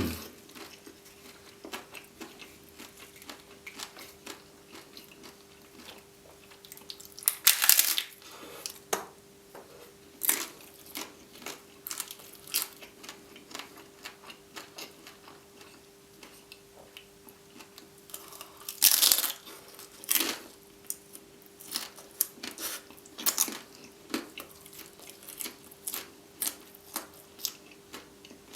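Close-miked eating sounds: chewing with many small wet mouth clicks, broken by a few louder crunching bites about eight seconds in and again around nineteen and twenty-three seconds. A faint steady hum runs underneath.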